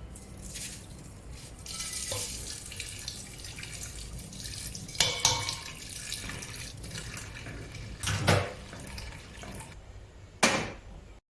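Kitchen tap running into a sink, with dishes clattering a few times. The water shuts off near the end, and one last clatter follows.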